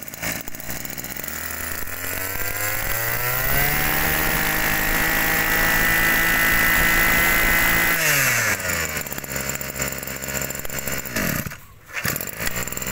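Small two-stroke brush-cutter engine revved up from idle over about two seconds, held at high revs for about four seconds, then dropped back to idle, with a short break near the end.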